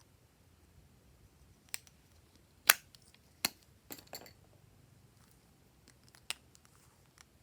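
A handful of short, sharp clicks and taps of small hard objects, about six, with the loudest about two and a half seconds in.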